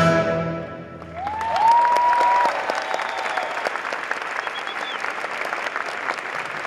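A symphony orchestra's final chord dying away, then audience applause starting about a second in and continuing steadily, with two rising whistles from the crowd near the start of the clapping.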